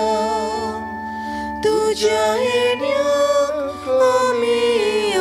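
Church choir singing the memorial acclamation of the Catholic Mass, a slow melody with vibrato over sustained instrumental accompaniment and a stepping bass line.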